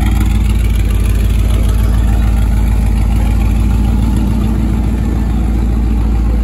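Open-engine T-bucket hot rod running with a deep, loud exhaust note, steady as the car rolls slowly away.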